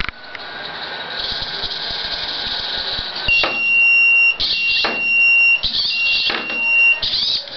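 Small robot arm's motors running with a steady high hiss, then three steady high-pitched whines, each about a second long, separated by short bursts of mechanical noise as the arm swings.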